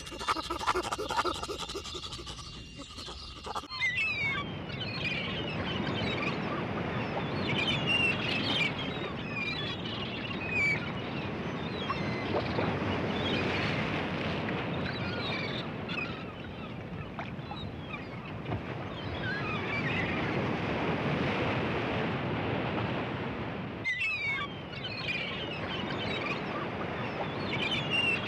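A flock of birds calling all at once, a dense chatter of many short high calls. It sets in about four seconds in, after a different pitched calling.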